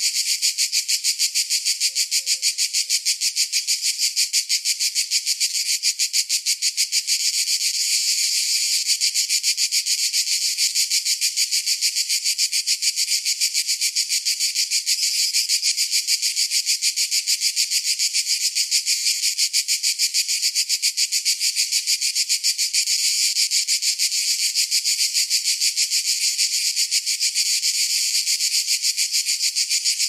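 Cicadas calling in a continuous chorus: a high-pitched buzz that pulses rapidly and evenly without a break.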